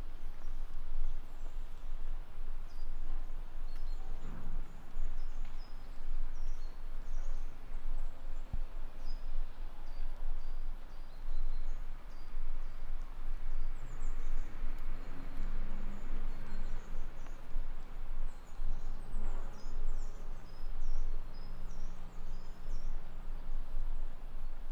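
Small birds chirping in the trees, many short high calls, over a steady low background rumble, with footsteps on a paved path at about one a second.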